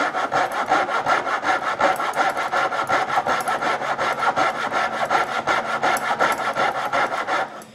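Coping saw cutting through a walnut knife-handle block in quick, even back-and-forth strokes, stopping just before the end.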